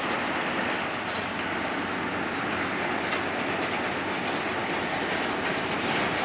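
Airport baggage tractor towing a long string of cargo container dollies past: a steady rolling noise of the linked carts with light clicking.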